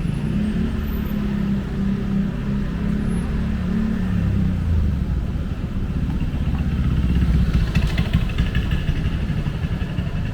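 Street traffic: a motor vehicle engine running close by with a low rumble, strongest in the first half, with busier, higher-pitched street noise near the end.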